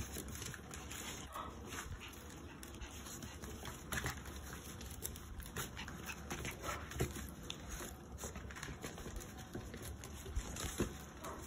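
Schnauzer puppies playing: scattered light scratches, taps and scuffles, with a few faint short squeaks.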